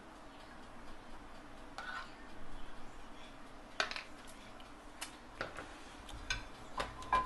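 A spatula and frying pan clinking and knocking as they are handled, a handful of sharp separate knocks mostly in the second half.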